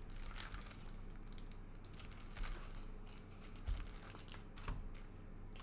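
Trading-card pack wrappers crinkling and cards rustling as they are handled, with a few small sharp clicks, over a faint steady electrical hum.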